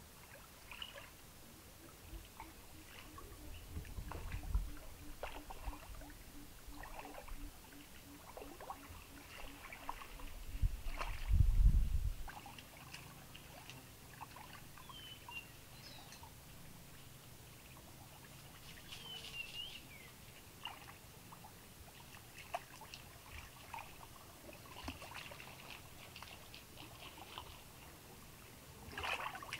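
Lake water sloshing and trickling as a person wades and works with their hands in shallow water. Scattered short high chirps run throughout. A low rumble about eleven seconds in is the loudest moment, and a brief splash comes near the end.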